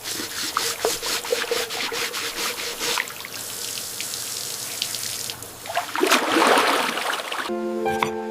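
Water trickling and splashing in a sink, with rubbing and many small clicks and knocks, then a louder rush of water about six seconds in.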